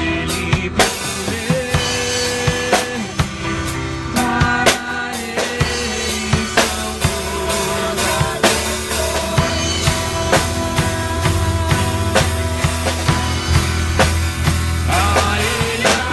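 Worship band playing an instrumental passage: a steady drum-kit beat with bass drum and snare under a strong bass line and held chords.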